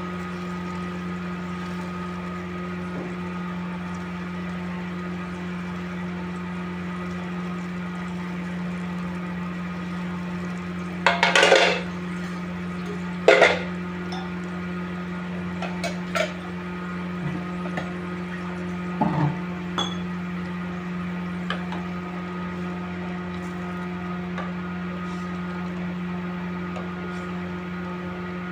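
Metal cooking utensils clattering against a pan: two loud clatters about eleven and thirteen seconds in, then a few lighter clinks. A steady hum runs underneath throughout.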